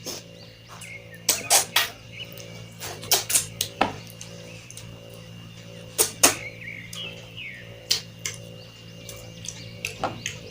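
Wet chewing and lip-smacking of a person eating mutton curry and rice in big bites. The smacks come irregularly, several a second at times, some much louder than others.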